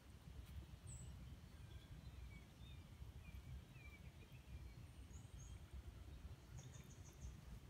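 Near silence: quiet outdoor ambience with a steady low rumble and a few faint, distant bird chirps, including a quick run of about five near the end.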